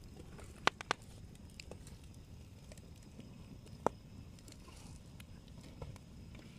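Wood campfire crackling: a low steady rush of flames with sharp pops, three in quick succession near the start and one loud pop about four seconds in.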